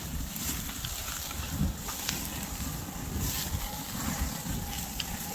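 Strong wind buffeting the microphone in an uneven rumble, with a few sharp pops from a burning oak-log campfire.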